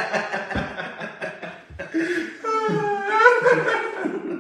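Several men laughing; a little over halfway through, one voice rises into a long, high-pitched laugh.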